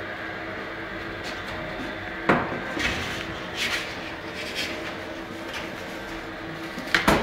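Knocks and clatter of a wooden baker's peel loading bread loaves into a deck oven, with one sharp knock about two seconds in and lighter knocks after it. A steady hum runs underneath.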